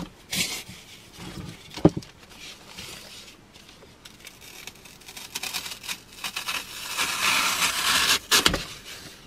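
Serrated knife sawing through a block of dry floral foam: a scratchy rasping that builds and is loudest near the end. A couple of sharp knocks come in the first two seconds.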